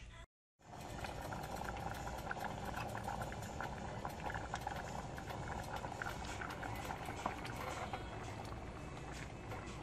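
A saucepan of rice, water and butter boiling on an electric stove: a steady bubbling with many small pops. The sound cuts out briefly near the start.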